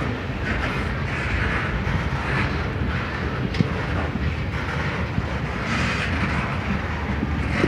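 A train's steady low rumble with a hiss that swells and fades.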